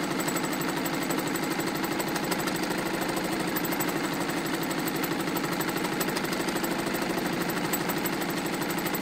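Vintage Emdeko mechanical sewing machine running steadily at speed, sewing a cam-driven decorative stitch: an even, fast, rhythmic mechanical chatter of the needle and cam mechanism.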